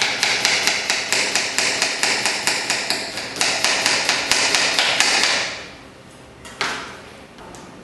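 Kitchen knife chopping a red onion on a plastic cutting board: quick, even strokes about five a second, fading out after about five seconds, with one more chop near the end.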